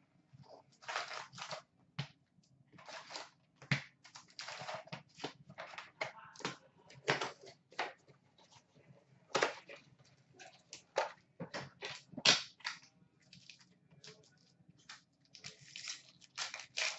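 Hockey card packs and their cardboard box being handled: crinkling pack wrappers with sharp, uneven taps and clicks in quick bursts.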